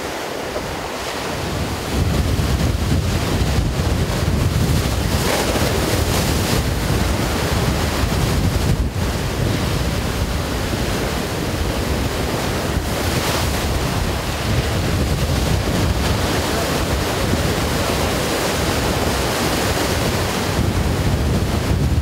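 Sea waves washing on the shore, with wind rumbling on the microphone, louder from about two seconds in.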